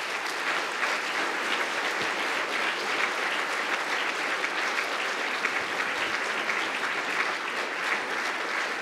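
Lecture audience applauding: steady, sustained clapping from many hands.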